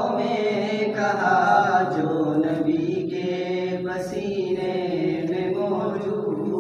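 Unaccompanied naat recitation: a male voice singing a devotional poem into a microphone in long, held, ornamented notes, with no instruments.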